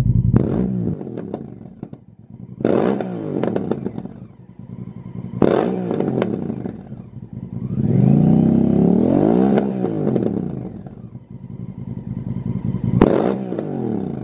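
Honda CRF1000 Africa Twin's parallel-twin engine, breathing through a Lextek GP8C aftermarket silencer, being revved at a standstill. Sharp throttle blips come about three, five and a half and thirteen seconds in, each falling quickly back toward idle, and a longer rev is held for about two to three seconds in the middle.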